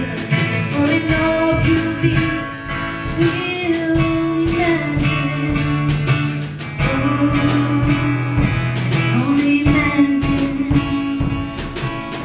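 Live band music with strummed acoustic guitar playing a slow worship song, an instrumental stretch with held notes and little or no clear singing.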